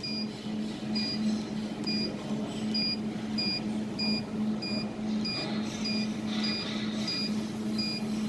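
Jewelry laser welding machine beeping in a steady series of short, high beeps, about three every two seconds, as its laser support is driven to a new focus position, over the machine's steady low hum.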